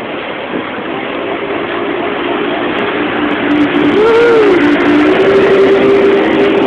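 A boat's engine running under way, with rushing water and wind noise. The engine note is steady, with a brief rise and fall in pitch about four seconds in as the sound gets louder.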